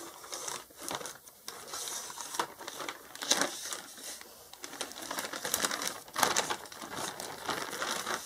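Plastic shipping bag crinkling and rustling in irregular bursts as it is handled and pulled open.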